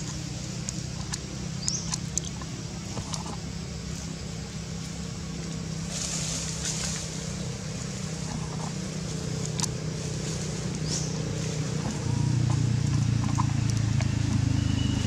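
Steady low hum of a motor vehicle engine running, growing louder and stepping up about twelve seconds in, with scattered faint clicks.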